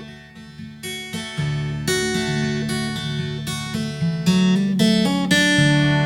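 Background music played on acoustic guitar, with plucked and strummed notes. It swells louder about a second in and again about two-thirds of the way through.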